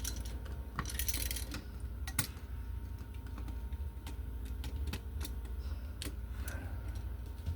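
Irregular small clicks and taps of wires and a screwdriver being worked onto the terminal screws of an electrical wall receptacle, over a steady low hum.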